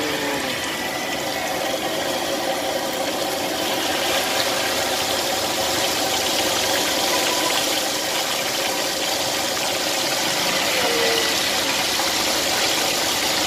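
Deep-frying in a wok: battered pieces and drizzled batter sizzling in hot oil as the batter crisps into crumbs. The sizzle grows louder and brighter about four seconds in as more batter goes into the oil.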